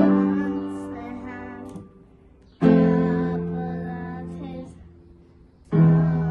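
Piano played by a young student: chords struck three times, about three seconds apart, each held and fading away slowly.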